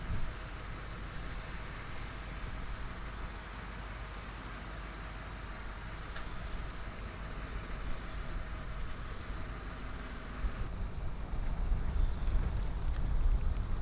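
Outdoor ambience with wind rumbling on the microphone over a steady hiss; the hiss cuts off abruptly about eleven seconds in and the gusty wind rumble grows louder toward the end.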